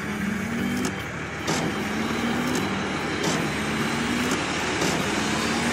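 Semi-truck engine running steadily as the trucks roll along. Short hisses come every second or two over the engine noise.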